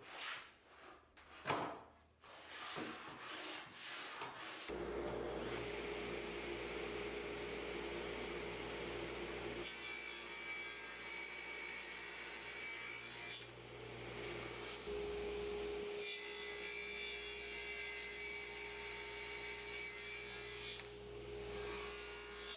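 A few knocks of wood being handled, then a table saw is switched on about five seconds in and runs steadily with its blade tilted to 45 degrees, cutting bevels on the ends of black walnut boards in two long passes.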